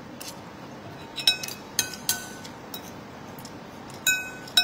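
Metal spoon clinking against a ceramic plate while eating: a handful of sharp clinks, each ringing briefly, two close together about a second in, two more around two seconds, and another pair near the end.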